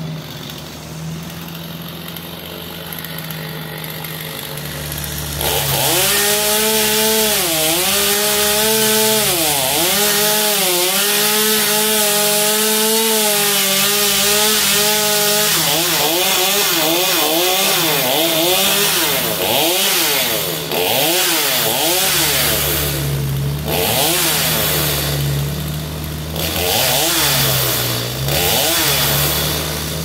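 Chainsaw idling, then opened up to full throttle about five seconds in and cutting into hickory wood, its pitch sagging each time the chain bites. In the second half it is revved up and down in short bursts, easing back toward idle near the end.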